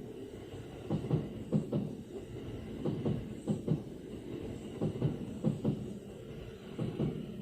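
Kintetsu Osaka Line train passing over a level crossing: a steady rumble of wheels on rail, with the wheels knocking over rail joints in quick pairs, one pair for each bogie.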